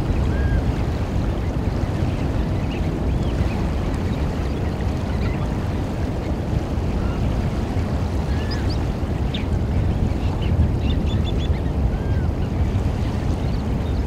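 Steady low rumble of waves and wind on the shore, with faint, short bird calls scattered through it, including a quick run of high notes about ten seconds in.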